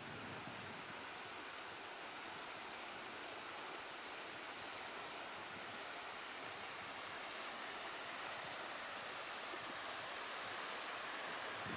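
Steady, even outdoor hiss with no distinct events, slowly getting a little louder.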